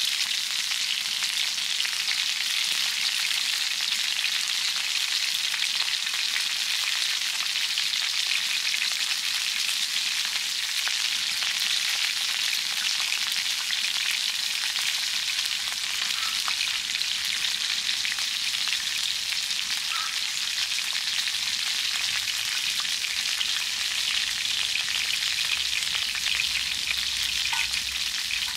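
Lamb entrecote frying over a wood fire: a steady sizzle with fine crackles.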